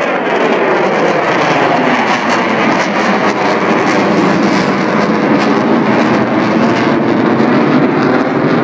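F-16 fighter jet flying overhead: loud, steady jet engine noise with a slowly sweeping, phasing tone as the aircraft passes.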